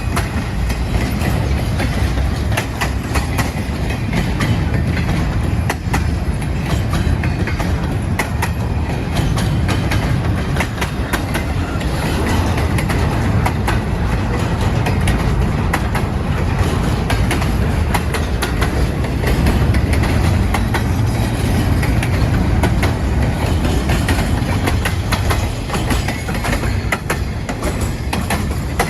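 Norfolk Southern freight train's cars rolling past, a steady heavy rumble with wheels clicking rapidly over the rail joints.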